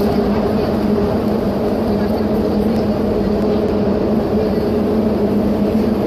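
Car tyres rolling over the corrugated decking of the Ponte 25 de Abril suspension bridge make a steady, pitched, humming drone with a low rumble beneath it, unbroken and even in loudness.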